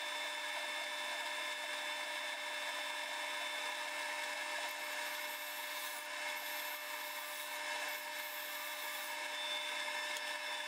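Wood lathe running, with steady motor tones under the hiss of a gouge cutting into hickory as the bowl is roughly hollowed out.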